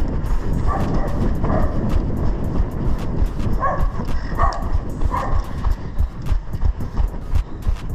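A runner's footsteps on pavement and cobbles, about three a second, under a steady rumble of wind and jostling on a head-mounted camera. A few short, sharp calls come between about one and five seconds in.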